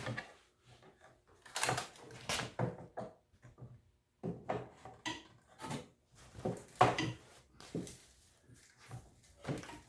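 Irregular knocks, clunks and rattles as a lawn mower's grass-catcher bag and its frame are handled and worked onto the back of the mower, about a dozen separate knocks with the loudest around the middle.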